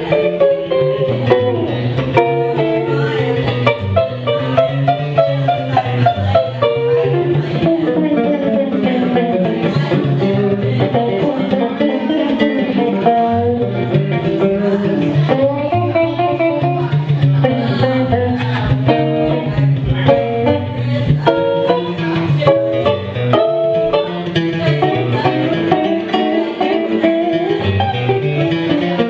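Electric and acoustic guitars playing an instrumental blues break: quick single-note lead lines over a steady, repeating bass-string pattern.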